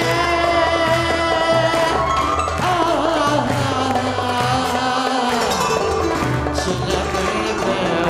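A man singing with a live Turkish band of kanun, darbuka and davul: he holds one long steady note for the first couple of seconds, then moves into a wavering, ornamented melody over a steady low drumbeat.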